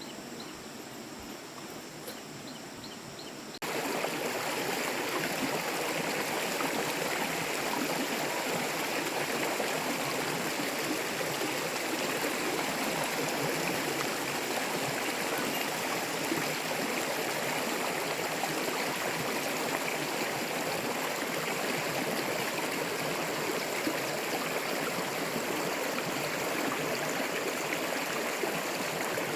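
Water running steadily in a stream, swollen after heavy rain. It comes in suddenly about four seconds in, after quieter outdoor ambience with faint high chirps.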